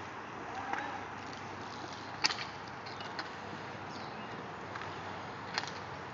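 Outdoor roller hockey play: a steady wash of rink noise with two sharp clacks, one about two seconds in and a fainter one near the end.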